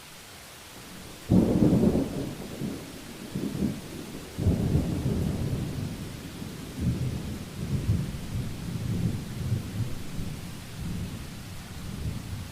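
Heavy rain hissing steadily as a thunderstorm passes: a sudden thunderclap about a second in, then long rolling thunder that swells and fades again and again before dying away near the end.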